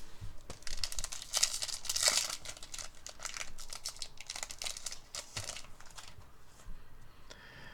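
A foil trading-card booster pack wrapper being torn open and crinkled: a quick run of crackles and rips, busiest in the first two or three seconds, then lighter rustling that fades out.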